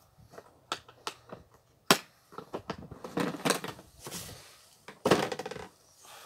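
Clicks and knocks of a plastic tool case and a corded drill being handled and set down on a wooden table, with a louder scrape near the end. The drill is not running.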